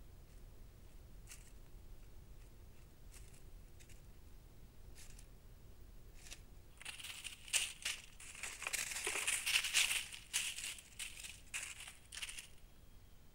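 Dry leaf litter rustling and crackling as an Allegheny woodrat moves through it. A few faint crackles come first, then several seconds of dense rustling from about halfway through, loudest shortly before the end.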